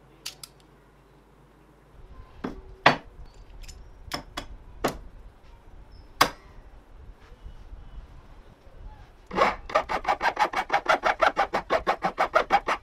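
A few sharp metal clicks and knocks as a homemade bench clamp, made from a bike sprocket and locking pliers, is handled and set on a wooden bench edge. About nine seconds in comes a fast, even run of rasping strokes, about eight a second, of hand and clamp scraping along the wooden board.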